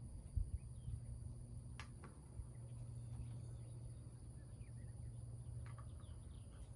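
Quiet outdoor ambience: a steady high-pitched insect drone with faint, scattered bird chirps over a low rumble, and a couple of light clicks.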